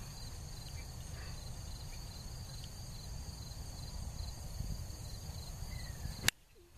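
Insects chirping in a steady, fast pulsing rhythm, with a low rumble of wind on the microphone beneath. One sharp click comes near the end.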